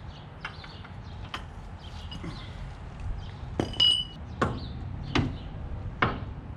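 Metal hand tools clinking and knocking on each other and on concrete, about six separate sharp clinks, one of them with a brief metallic ring.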